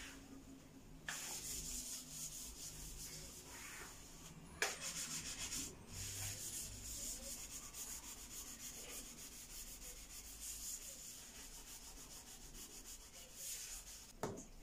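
A cloth being wiped and rubbed over a hard kitchen wall and countertop, a steady scrubbing hiss broken by a few short pauses. A sharp knock comes about four and a half seconds in and another just before the end.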